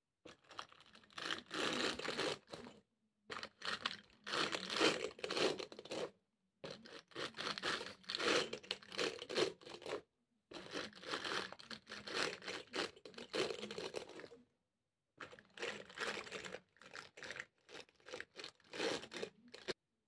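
Wire brush bristles scraping against the fabric of striped ballet flats, scuffing the shoes. It comes in five long scratchy bursts of a few seconds each, with short silent gaps between them.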